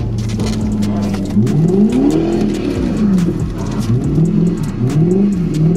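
Toyota 1UZ V8 in a drift car, heard from inside the cabin. It holds steady revs at first, then from about a second and a half in it revs up and down again and again as the driver works the throttle through a slide.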